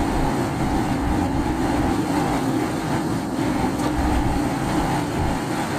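Steady road noise inside a moving car: the engine and the tyres running on a rain-soaked road.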